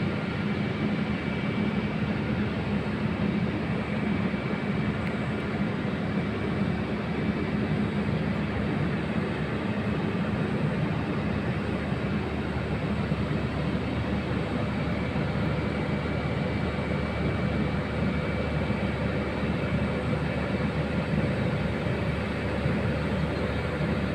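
Steady machinery drone: a low hum with faint, unchanging higher whines, the sound of an oilfield camp's running equipment.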